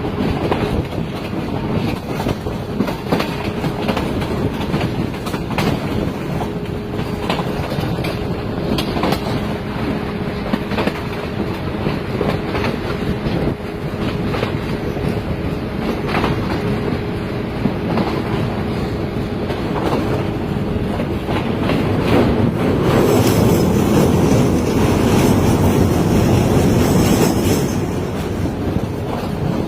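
Passenger train running along the track, wheels clicking over the rail joints over a steady rumble. About 23 seconds in, a louder rushing hiss joins in for about five seconds.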